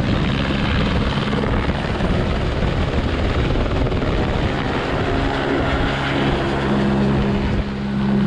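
Helicopter flying, a loud, even engine and rotor noise with a steady low hum.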